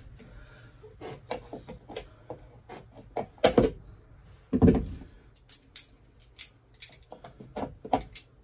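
Metal hand tools being picked up and used, including locking pliers: a series of sharp metallic clinks and knocks, with a loud clank about three and a half seconds in and a heavier thump about a second later.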